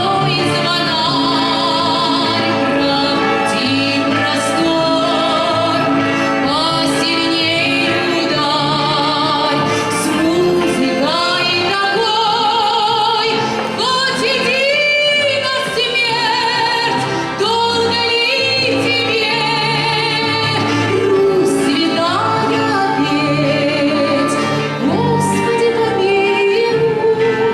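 Female soloist singing long, high notes with a wide vibrato over orchestral accompaniment.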